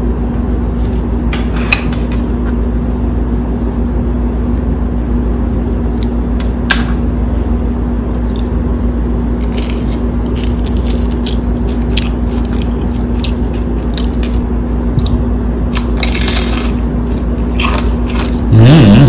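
Crisp fried-fish batter crunching in scattered bites and chews over a steady electrical hum. Near the end comes a short, louder, low voice sound.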